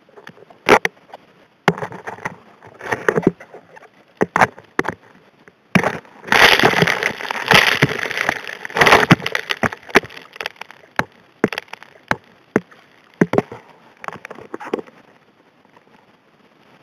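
Rocks and gravel clattering and clacking as they are sucked into a Model 625 HD P hand dredge's suction nozzle, heard through an underwater microphone. The knocks come irregularly, thicken into a dense rattle about six seconds in, and thin out near the end.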